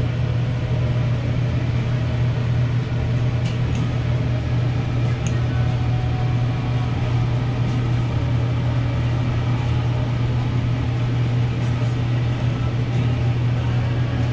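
Steady low hum of food truck kitchen machinery running without a break, with a couple of faint light clicks a few seconds in.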